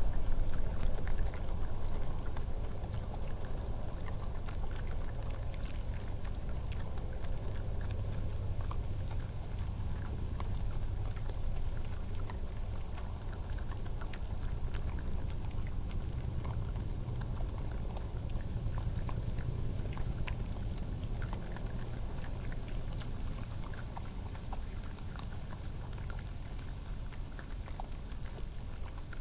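Badgers and foxes crunching and chewing peanuts: many small, irregular crunches and clicks over a steady low rumble.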